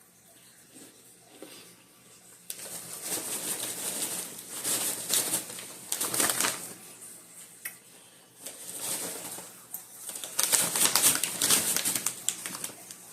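Candy-coated popcorn being handled and eaten: crisp crinkling and crunching in several bursts, the loudest near the end.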